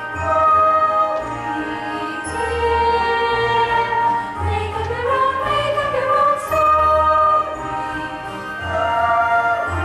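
Chorus of girls singing a slow show tune in long, held notes, with instrumental accompaniment and a bass line underneath.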